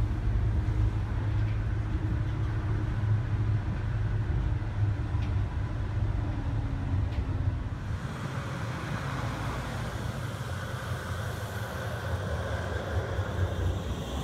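Low rumble of a tram running, heard from inside the car. About halfway it gives way to street noise outdoors as a tram pulls in to a stop.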